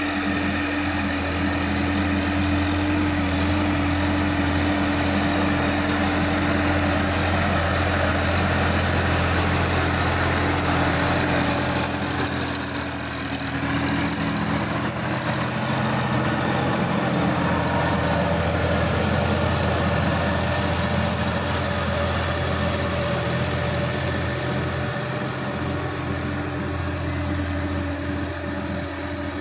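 Sonalika DI-50 RX tractor's diesel engine running steadily under load while driving a rotary tiller through the soil, with a brief dip in level about thirteen seconds in.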